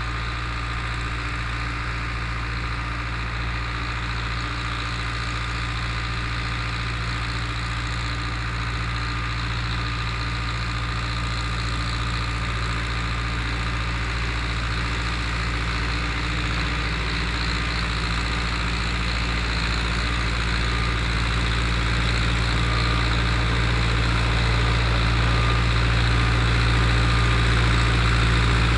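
Long 900 (Zetor 8011) diesel tractor engine running steadily while pulling a disk harrow, growing gradually louder.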